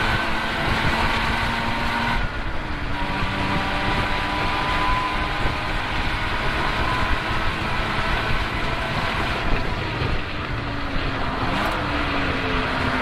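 Car engine running hard around a racetrack, its pitch shifting up and down with throttle and gears over a steady rush of noise. The note briefly falls away about two seconds in.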